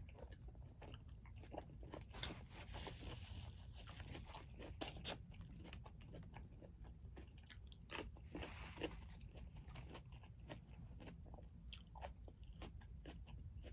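Close-up chewing and crunching of a mouthful of burrito with pickled jalapeño and carrot. Many small wet clicks run throughout, with two louder crunchy stretches about two and eight seconds in.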